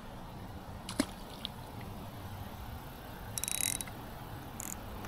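Fishing reel on an ultralight spinning rod ratcheting in a quick run of clicks about three and a half seconds in, with a shorter burst about a second later. A single sharp tap comes about a second in.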